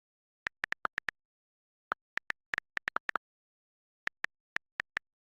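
iPhone on-screen keyboard click sounds as a search is typed: about twenty quick, light ticks in three runs, with silence between runs.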